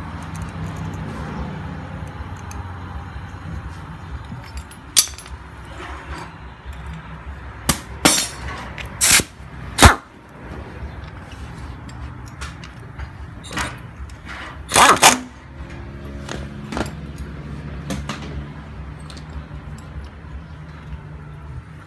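Scattered sharp metallic clinks and knocks of hand tools and engine parts being handled, the loudest about nine to ten seconds in and again around fifteen seconds, over a steady low hum.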